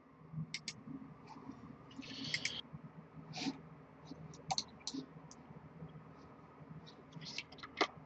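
Faint, scattered computer mouse clicks at irregular intervals, over a low steady hum.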